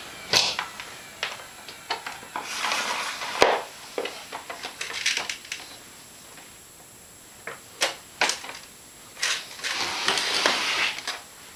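Scattered clicks, knocks and rustling of an Elektro-Helios U318 vacuum cleaner being handled with its motor off: the mains plug pulled from the wall socket, then hands on the plastic body as it is moved about on a wooden floor. The sharpest knock comes about three and a half seconds in.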